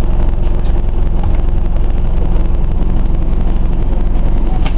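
Scania OmniCity bus's diesel engine running steadily, heard from inside the passenger saloon, with a single sharp click near the end.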